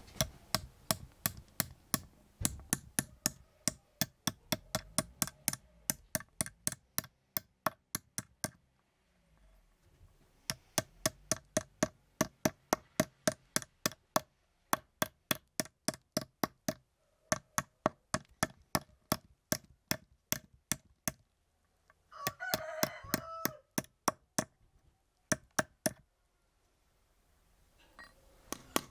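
Quick, even metal taps, about three a second, hammering a thin brass spoon blank against a wooden stump, with a couple of short pauses. About two-thirds of the way through, a rooster crows once in the background.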